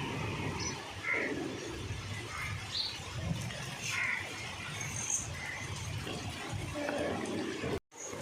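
Short scattered chirps and squeaks from small animals over a steady low rumble, during rain.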